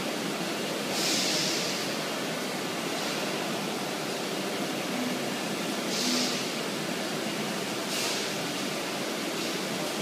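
PADE five-axis CNC router milling a curved wooden workpiece: a steady hiss of the running spindle. The cutting noise swells briefly about a second in, again around six seconds and near eight seconds.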